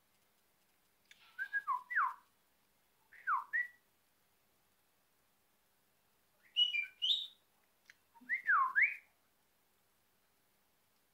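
Budgerigar whistling in four short phrases of sliding notes, mostly swooping down and back up; the third phrase is higher and choppier.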